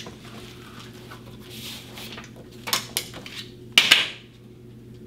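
Metallic clicks and clacks of a Polish P-64 pistol being handled as it comes out of its box, with a sharp double clack just before four seconds in the loudest.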